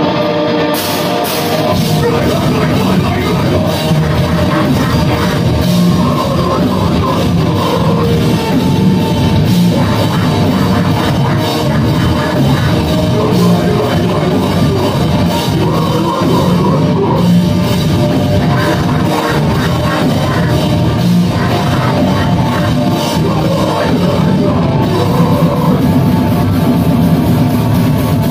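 A metal band playing live: distorted electric guitars, bass and a drum kit, loud and dense, with the full band coming in about a second in.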